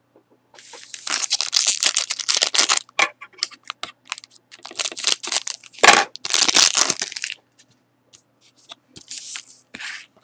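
Foil wrapper of a Panini Select hockey card pack crinkling and being torn open in a run of noisy bursts, loudest about six seconds in, followed by softer rustling as the cards come out.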